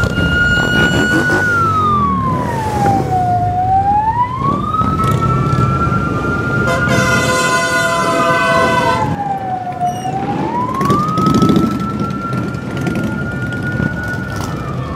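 A siren wailing slowly, holding a high note and sliding down and back up twice, over the low rumble of motorcycle engines riding past. Just past the middle, a horn blasts for about two seconds.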